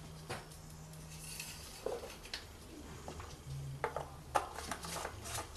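Scattered light clicks and taps of plastic and metal under the bonnet as the dipstick goes back into its tube, the oil funnel is lifted out of the filler neck and the oil filler cap is refitted, with the taps coming more often in the second half.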